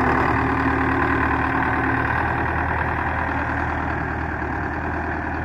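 Belarus 510 tractor's diesel engine running steadily under load while pulling a cultivator through a flooded rice paddy, with the churned muddy water sloshing. The sound eases off slightly toward the end as the tractor pulls away.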